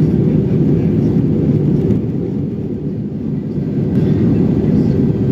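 Steady low-pitched noise inside a jet airliner's cabin in flight: engines and rushing air, slightly quieter for a second or two midway.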